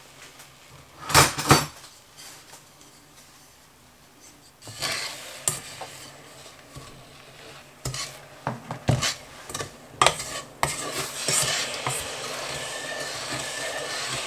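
Wooden spatula stirring sugar, lemon juice and water in a stainless steel pot, knocking and scraping against the metal, with two loud clanks of the pot about a second in. In the last few seconds a steady sizzling hiss builds as the pot heats on the hob.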